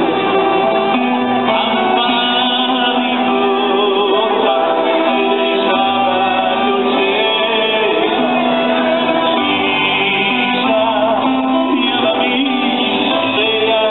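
Live band music with a male singer singing into a microphone over the band, including drums and guitar.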